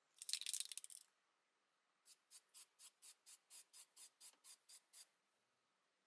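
Aerosol spray paint can spraying: a loud burst about a second long, then about a dozen short puffs, roughly four a second.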